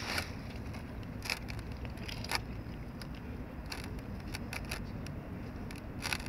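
Cats crunching dry kibble: sharp, irregular crunches about once a second over a steady low rumble.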